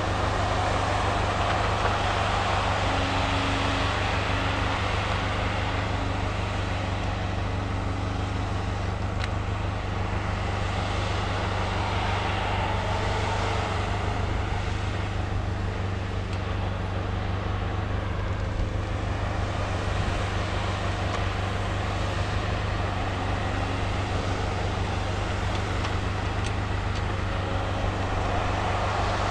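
Cat 568 shovel logger's diesel engine running steadily as the machine works, with the sound swelling and easing now and then over a constant low drone.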